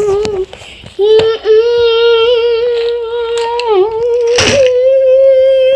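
A child singing one long held "ahh" note, as for a treasure reveal, breaking off briefly about half a second in, then holding steady and dropping in pitch at the very end. A brief thump comes about four and a half seconds in.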